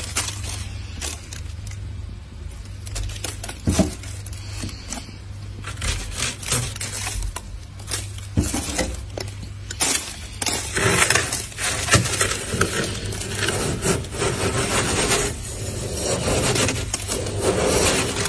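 Wooden-handled metal scraper scraping and crunching through thick freezer frost in irregular strokes, busier and louder in the second half, over a steady low hum.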